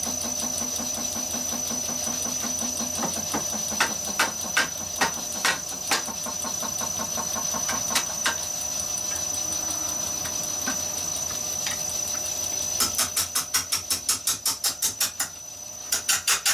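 Wood lathe running with a large mesquite log spinning while a carbide Easy Wood turning tool cuts into its end, under a steady high whine. Scattered sharp knocks come in the middle, then a rapid even tapping, about six a second, as the tool strikes the uneven log on each turn, pausing briefly near the end before resuming.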